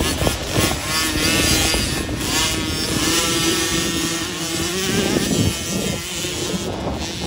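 Small 50cc two-stroke youth motocross minibike running on the track, its engine note rising and falling as the throttle is worked, then holding a steady high pitch through the middle before easing off.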